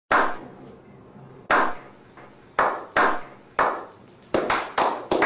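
A slow clap: hand claps with a short ringing tail, spaced about a second apart at first and quickening toward the end as several people join in.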